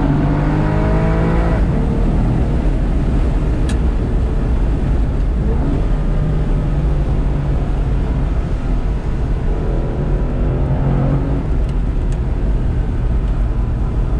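Aston Martin DBS's naturally aspirated V12 engine heard from inside the cabin while driving. It climbs in pitch under acceleration over the first second or so, runs steadily over road noise, and pulls up again about ten seconds in.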